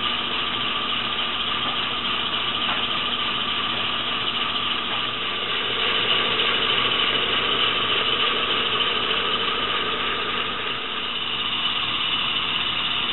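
Accucraft Gauge 1 live-steam model of East Broad Top #12, a 2-8-2, running on rollers on its first run: a steady mechanical sound of its exhaust and running gear turning on the rollers.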